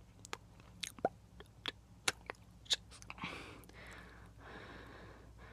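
ASMR mouth sounds close to the microphone: a series of sharp, wet clicks for about three seconds. Then two long, heavy breaths, unvoiced and breathy.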